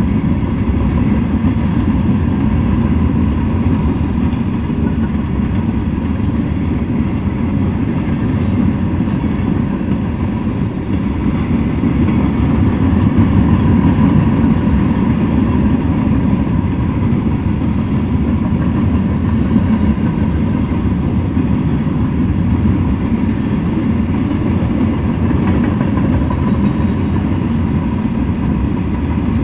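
Freight train of steel-coil cars rolling past on the rails: a steady low rumble.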